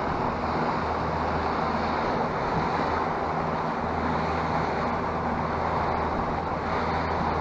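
A boat's engine running with a steady low drone while the boat trolls under power, under the rush of water churning in its wake and wind buffeting the microphone.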